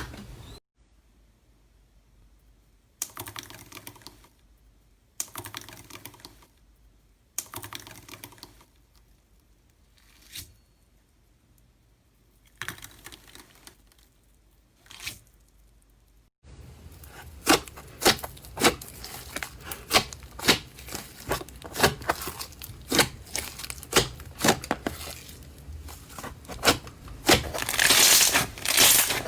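Slime being squeezed and pressed by hand, crackling and popping. First come separate squishes about every two seconds with quiet between them. From about halfway a denser run of crackling follows, with many sharp pops.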